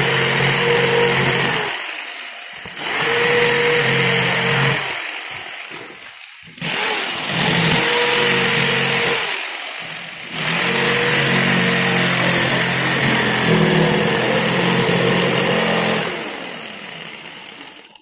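Electric jigsaw cutting through an MDF sheet in four spells, its motor winding down briefly between them; the longest cut comes last and fades out near the end.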